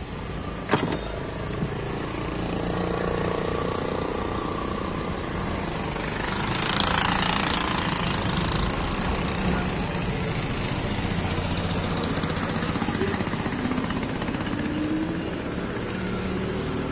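Roadside traffic noise: a steady rumble of passing vehicles, with one vehicle going by louder about halfway through. There is a single sharp knock near the start.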